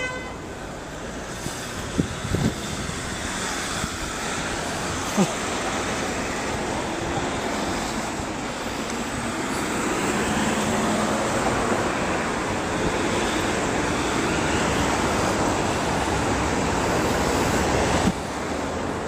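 Road traffic noise, swelling from about halfway through as a vehicle goes by and dropping sharply near the end, with a few sharp knocks in the first few seconds.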